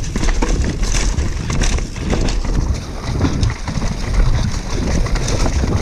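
Giant Glory downhill mountain bike riding fast over a dirt and leaf-covered forest trail: tyres rolling over roots and stones with frequent knocks and rattles from the bike, and wind buffeting the camera's microphone.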